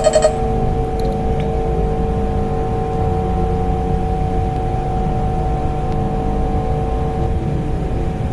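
Steady low rumbling drone with two held tones above it, the kind of ominous ambient soundtrack used in analog horror videos.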